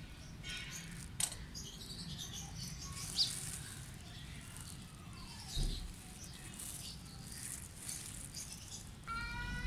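Outdoor background with scattered faint bird chirps, broken by a few sharp clicks and knocks: one about a second in, one about three seconds in, and a knock with a falling tone a little after five seconds. A voice begins just before the end.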